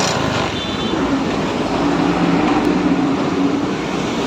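Honda Dio scooter's small single-cylinder four-stroke engine running steadily, freshly started after a new air filter and spark plug were fitted.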